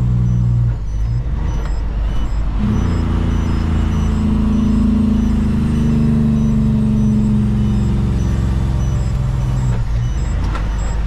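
Kenworth truck's diesel engine heard from inside the cab: the engine note drops off about a second in, then from about three seconds in the engine pulls steadily at a higher pitch before easing near the end, the pattern of the driver working through the gears.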